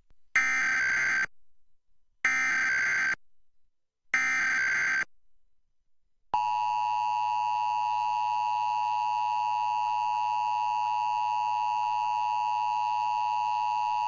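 Emergency Alert System tones: three one-second bursts of the SAME digital header, a buzzy data squawk, followed about six seconds in by the steady two-tone EAS attention signal held for about eight seconds, opening the nationwide EAS test message.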